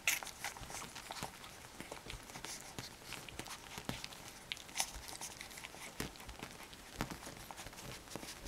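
Newborn puppies suckling at their mother: an irregular patter of small wet clicks and smacks with soft rustling of fur and blanket, and a brief faint squeak about halfway through.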